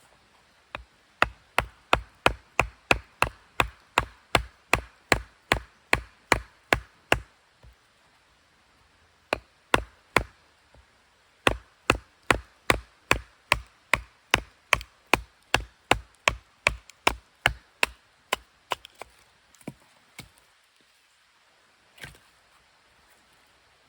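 Firewood being chopped or split, blade striking wood in steady strokes about three a second. The strokes come in three runs with short pauses between them, then a few lighter, scattered knocks near the end.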